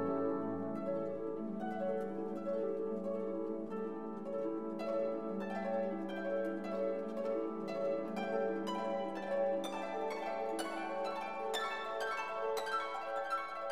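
Background instrumental music: quick plucked string notes over a held low note, growing busier about five seconds in.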